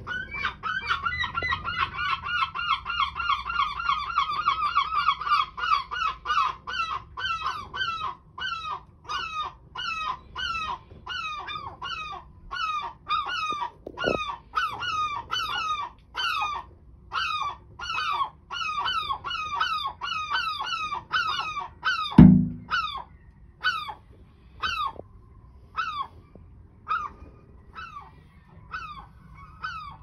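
Herring gull calling over and over with short, falling calls: a fast unbroken run for the first few seconds, then about two calls a second that space out near the end. A loud sharp knock comes about two-thirds of the way through, with a fainter one around the middle.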